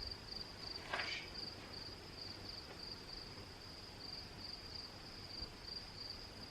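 Crickets chirping steadily in a high, evenly pulsing trill, with a brief faint noise about a second in.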